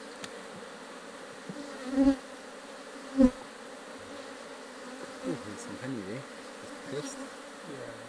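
Honeybees humming steadily around an opened Langstroth hive. Two sharp wooden knocks, about two and three seconds in, come from the hive tool working the frames loose.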